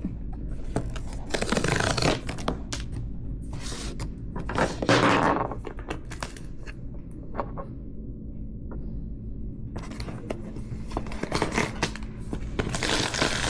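Small cardboard blind box being opened by hand: irregular tearing, scraping and crinkling of packaging with light clicks and knocks, a longer rasping tear about five seconds in.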